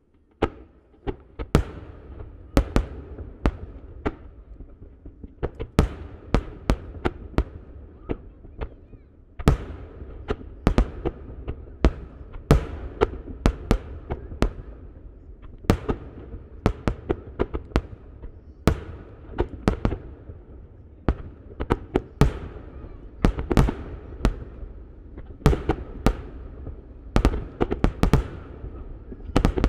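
Rapid barrage of one-shaku (about 30 cm) aerial firework shells launching and bursting, sharp bangs following each other several a second over a continuous low rumble.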